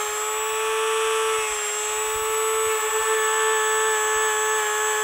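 Handheld rotary tool with a polishing wheel running at a steady whine as it buffs a small brass model-locomotive bell.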